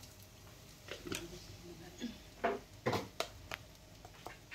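Metal spoon stirring chilla batter in a stainless steel bowl, clinking against the bowl's side in a handful of irregular clinks, the loudest about two and a half to three and a half seconds in.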